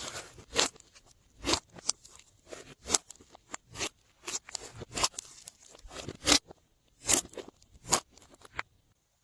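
Glossy slime being squeezed and folded by hand, giving a string of sharp, irregular clicks and pops, with a brief pause near the end.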